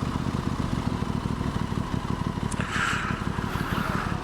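Aprilia Tuono 660 parallel-twin engine running steadily under way, heard from the rider's helmet camera, with a brief rustle of higher noise near the end.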